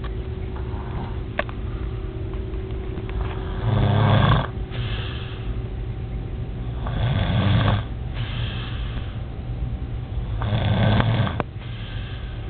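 A sleeping person snoring loudly: three long snores, each just under a second, about three and a half seconds apart, over a steady low hum.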